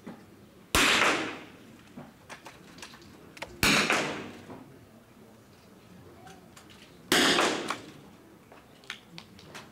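.22 rimfire smallbore target rifles firing three single shots about three seconds apart, each a sharp crack with a short echo in the hall.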